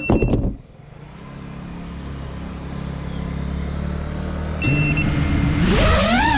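A 5-inch FPV quadcopter's motors heard from its onboard camera: the high whine drops away at the start as the throttle is cut, leaving a low hum, and near the end the motors spool back up with a whine that rises and falls in pitch. Two brief high steady tones sound, one at the start and one about two-thirds of the way through.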